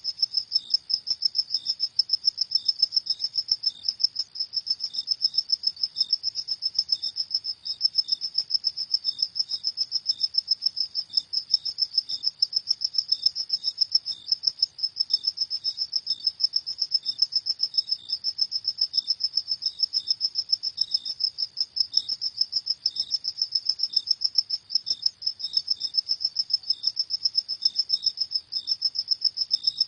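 Crickets chirping: a high, steady trill of rapid, evenly repeated pulses, with a second, fainter chirp slightly lower in pitch sounding at intervals.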